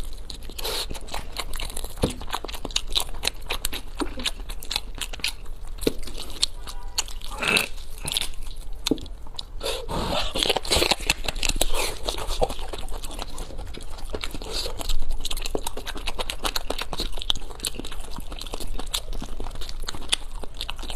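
Close-miked chewing and biting of braised pork knuckle, with many small, irregular mouth clicks and smacks.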